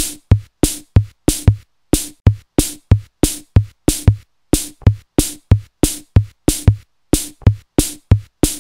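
Background music: a steady beat of sharp percussive hits, about three a second, each with a low kick and a bright snap.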